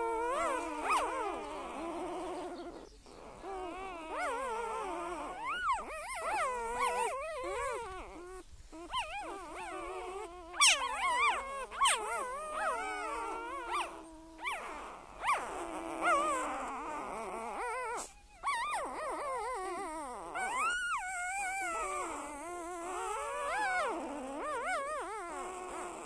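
A pet animal making a run of long, wavering vocal calls that slide up and down in pitch, one after another.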